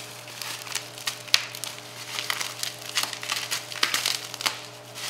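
Plastic bubble wrap crinkling and rustling as it is pulled off a handheld camera stabilizer, in many quick irregular crackles, with one sharper click about a second and a half in.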